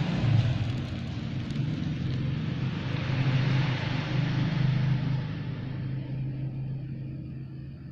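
Motorcycle engine running steadily with a low hum, fading over the last few seconds.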